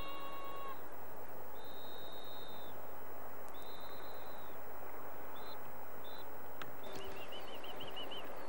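High, thin whistle blasts of the kind a field-trial handler gives a pointing dog: two long blasts of about a second each, two short pips, then a quick warbling trill near the end. A steady hiss lies under them.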